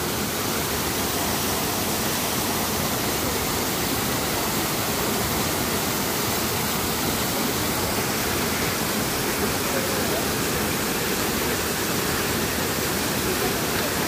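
A waterfall's falling water: a steady, unbroken rush.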